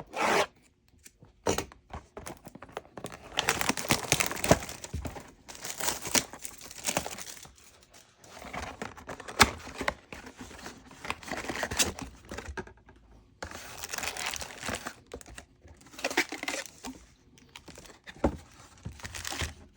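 Trading-card box packaging being torn open by hand: irregular crinkling and tearing of the wrapping, in bursts of a few seconds with short pauses.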